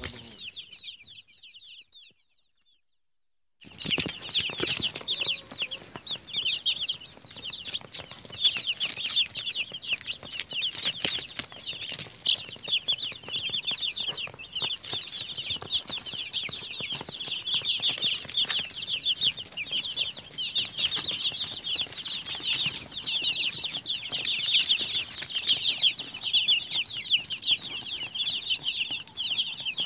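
A flock of young broiler chicks peeping, with many rapid, high chirps overlapping and scattered light ticks among them. The peeping fades and cuts to dead silence about two seconds in, then comes back at full level a second and a half later.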